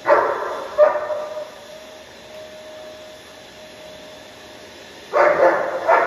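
Young long-coated German Shepherd barking at a vacuum cleaner: two sharp barks right at the start and two more near the end, over the steady hum of the running vacuum.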